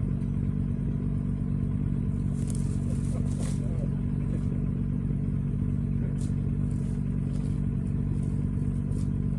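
Motorcycle engine running at a steady, unchanging speed while riding, with a few faint clicks.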